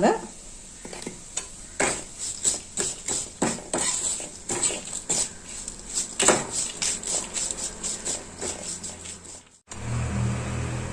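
A metal spoon scraping and clinking against a metal pan in irregular strokes as a thick, dry fried ginger and spice mixture is stirred. The sound cuts out briefly near the end, followed by a low hum.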